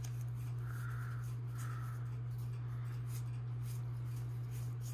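Pokémon trading cards being handled and sorted by hand: faint soft rustles and light ticks of card against card, two brief rustles in the first couple of seconds, over a steady low hum.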